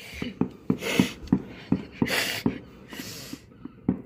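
Fireworks exploding in a rapid string of sharp bangs, about three or four a second, with a few short bursts of hissing noise in between.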